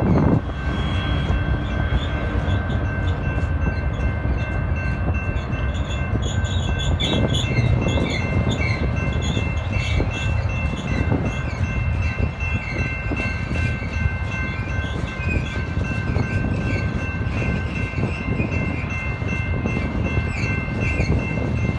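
Freight train of flatcars loaded with steel pipe rolling steadily past, its rumble mixed with heavy wind buffeting on the microphone. Thin steady high tones run over it, with scattered wavering squeals.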